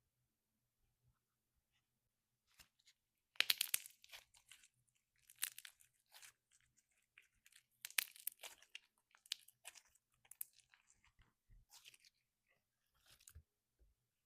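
Peachybbies slime being squished and stretched, giving clusters of sharp crackles and pops. The crackling starts about three seconds in and comes in bursts, the loudest near its start and again about halfway through.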